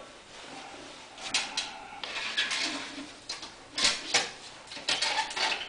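Handling noise as a whole turkey is set into a turkey fryer's metal basket: irregular knocks and clicks against the metal with a second or so of rustling.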